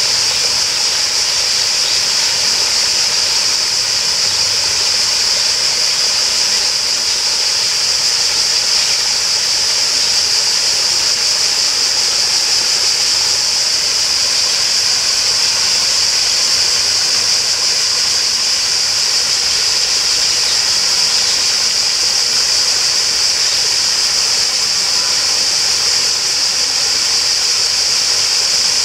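Steady, unbroken rush of flowing water, with a constant high-pitched hiss.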